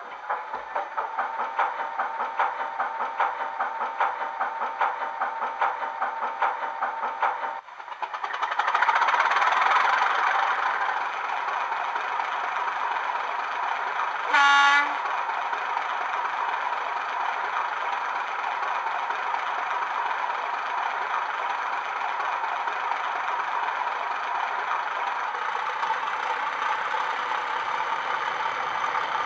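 Recorded Class 31 diesel locomotive sounds from a LokSound 5 DCC decoder, played through a small 26x14x7mm speaker in a Hornby model. A fast rhythmic clatter of about four or five beats a second gives way at about seven and a half seconds to a louder surge as the engine runs up, which then settles to a steady idle. One short horn toot comes about halfway through.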